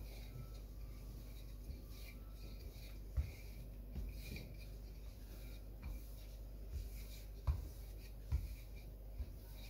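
Wooden rolling pin rolling out shortcrust pastry dough on a floured countertop: faint rubbing and scraping, with a few short knocks.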